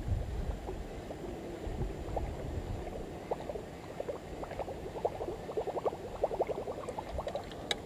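A lure being reeled back after a cast: a fast run of small ticks and gurgles that builds from about three seconds in and is thickest toward the end. Low wind rumble on the microphone during the first couple of seconds.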